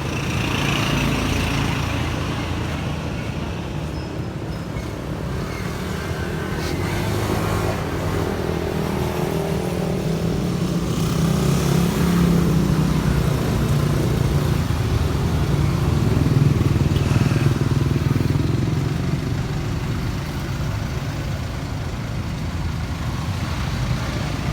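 Motorcycle engine running steadily, getting a little louder for several seconds in the middle.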